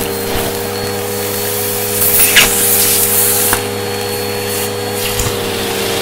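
Vacuum cleaner running steadily with its hose wand on carpet, sucking up dirt and small debris that clicks and rattles up the hose. A louder hissing rush comes about two seconds in and lasts a second or so.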